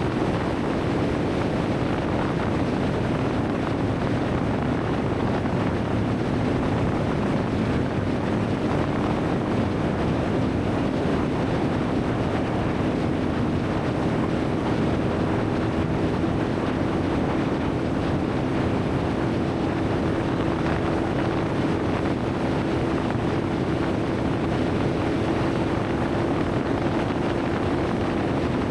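Boat's outboard motor running steadily, its tone growing a little clearer and higher about halfway through, with wind noise on the microphone.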